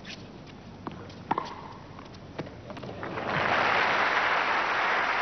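A tennis rally: a handful of sharp racket strikes and ball bounces, then crowd applause breaking out about three seconds in for a forehand winner and carrying on.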